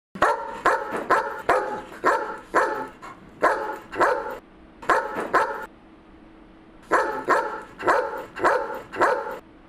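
A dog barking repeatedly, about two barks a second, in runs broken by short pauses.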